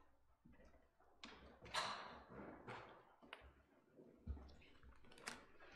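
Near silence of a small room, broken by a few faint taps and clicks and a brief soft rustle about two seconds in.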